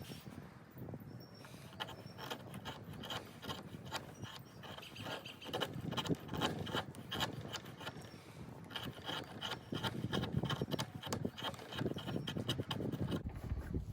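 Swiss Army knife blade whittling shavings off a stick of resinous pine fatwood: a steady run of short, dry scraping strokes of steel cutting wood.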